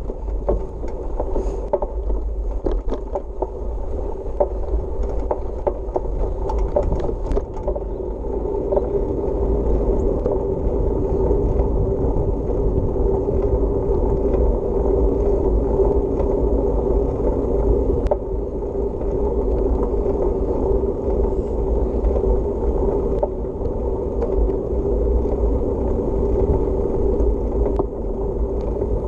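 Bicycle riding with the camera on board: clicking and rattling over rough ground for the first several seconds, then a steadier rolling hum and rumble as the tyres run on the paved path.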